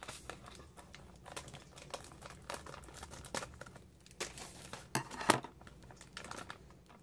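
A plastic fish-shipping bag crinkling as it is snipped open with scissors and handled, with scattered crackles throughout. Two sharper knocks come about five seconds in.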